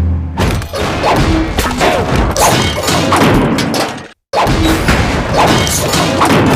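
A rapid string of slapstick cartoon sound effects: thuds, crashes and whacks layered over one another, with a few short sliding tones. Everything cuts out for a split second about four seconds in, then carries on.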